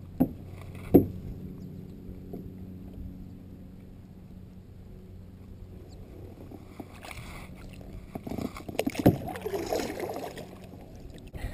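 Kayak paddle knocking twice against the kayak hull, then a quieter stretch, then paddle strokes with water splashing and another sharp knock near the end.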